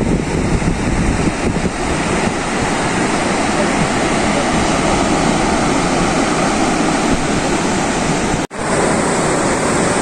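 Ocean surf breaking on a sandy beach, a steady wash of noise mixed with wind rumbling on the phone microphone; the sound drops out for an instant near the end.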